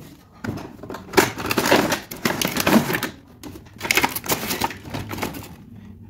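A cardboard toy box and its clear plastic tray being opened and handled, with irregular crinkling and scraping.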